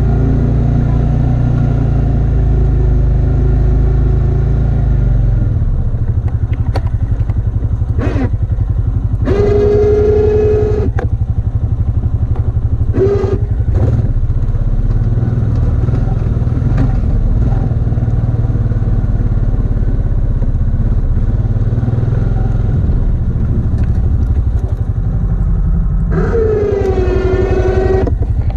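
ATV engine running steadily while plowing snow. A whine rises over it three times: once for about a second and a half a third of the way in, briefly a little later, and for about two seconds near the end, when it drops slightly in pitch and then holds.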